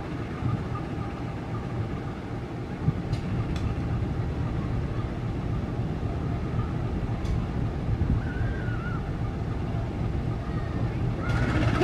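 Diesel-electric locomotive moving slowly, its engine a steady low rumble, with a few faint clicks.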